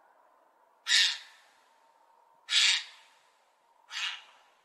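Magpie giving three short, harsh calls about a second and a half apart, the last one quieter.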